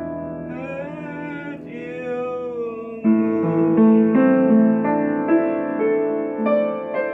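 Piano playing a slow ballad. For about the first three seconds a held, slightly wavering melody line sounds over soft chords; then, about three seconds in, the piano comes in louder with fuller chords and a moving melody.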